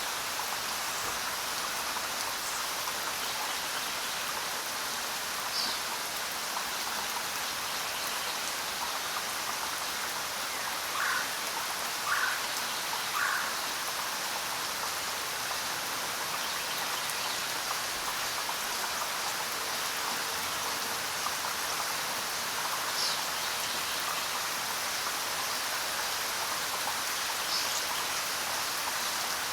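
Steady rain falling, with a few short bird chirps over it: three calls about a second apart near the middle, and single high chirps here and there.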